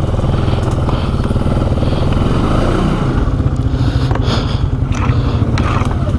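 ATV engine running at low, steady speed while the machine pushes slowly through brush, with scattered scrapes and clicks from about two-thirds of the way in.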